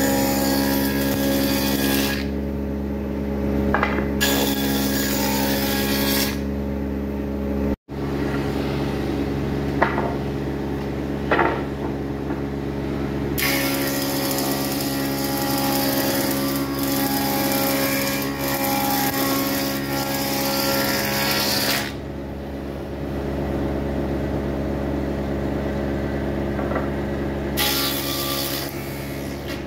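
A woodworking machine's motor running steadily while boards are fed past its spinning cutter. The cutting noise swells in long stretches as the wood passes the cutter and falls back to the motor's hum between passes, with a few sharp ticks along the way. The sound cuts out for an instant about a quarter of the way through.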